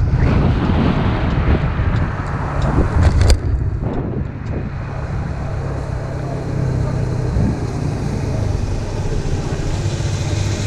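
Kymco Agility scooter with a 72cc big-bore kit, engine being run in, slowing with wind and road noise and a few sharp knocks about three seconds in, then idling steadily.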